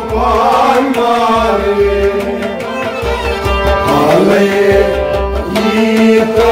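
Kashmiri folk song: a man's voice with sliding, held notes over sustained harmonium chords, accompanied by a hand drum with repeating low strokes.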